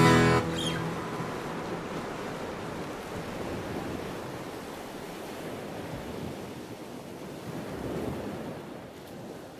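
Guitar music stops about half a second in, leaving a steady rushing hiss of ocean surf that swells slightly near the end.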